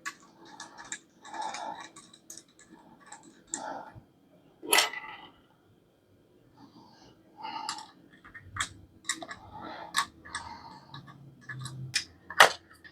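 Metal parts of a bike repair stand being handled and fitted together during assembly: scattered clicks and knocks with some rustling, and a sharp knock about five seconds in and another near the end.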